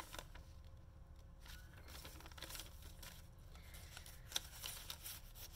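Soft paper rustling and crinkling as a glossy magazine clipping and the papers of a junk journal are unfolded and handled, with one sharp tap about four seconds in.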